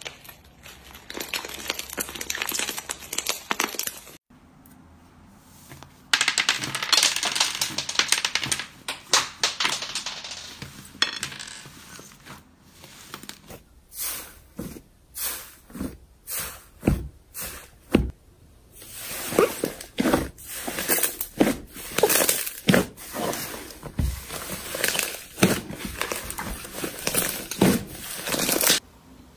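Slime being squeezed and poked by hand, giving dense stretches of fine crackling with a short pause, then separate sharp pops in the middle before the crackling returns.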